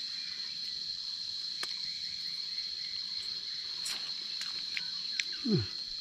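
Steady high-pitched drone of forest insects, with a few faint clicks and a short low falling sound near the end.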